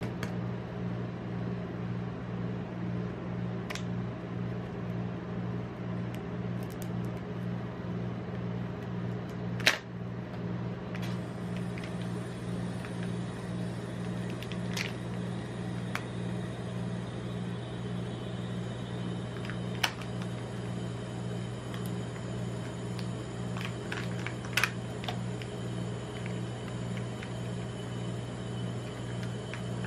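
Refrigeration unit of a rolled-ice-cream cold plate humming steadily and low. Over it, a handful of sharp clicks and crinkles come from the plastic Kinder Joy egg, its foil lid and the toy capsule being opened by gloved hands. The loudest click comes about ten seconds in.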